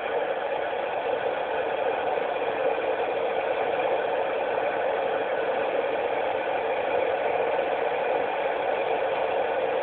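Steady radio static from a Yaesu FT-847 transceiver tuned to the ISS voice downlink on 145.800 MHz, the receiver's hiss with no voice coming through.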